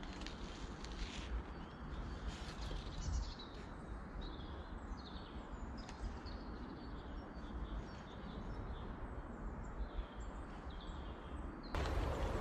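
Small birds chirping and singing over a steady low rumble of outdoor noise. About a second before the end, the background turns abruptly louder and noisier.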